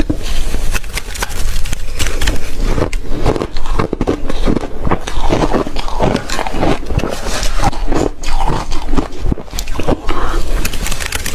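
Close-miked crunching and chewing of shaved ice, dense crackling bites coming one after another.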